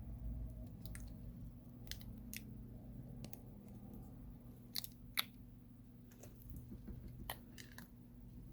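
Faint, scattered small clicks and taps of tweezers and small phone parts being handled during a smartphone teardown, with two sharper clicks about five seconds in, over a steady low hum.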